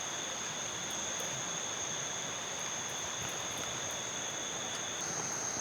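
Steady rush of river water with insects singing two continuous high-pitched tones over it; the lower tone stops near the end.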